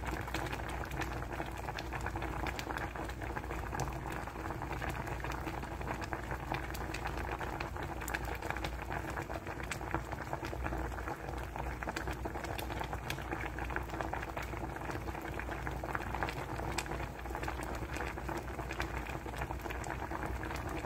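Shrimp and vegetable soup boiling in a pot: a steady, dense bubbling with many small pops.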